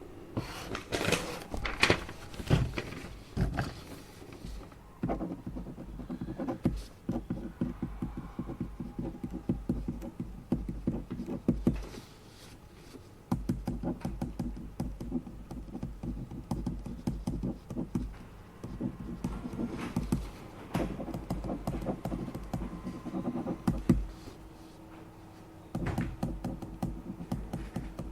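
Typing on a computer keyboard in long runs of rapid key clicks, pausing briefly a few times; a few louder knocks and handling sounds in the first few seconds.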